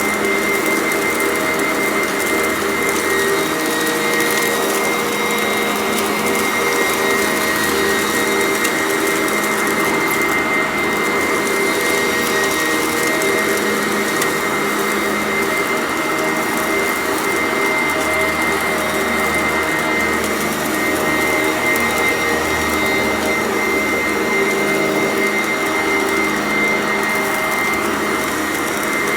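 Sanitaire upright vacuum cleaner running steadily, its motor giving a constant high whine over the rush of airflow.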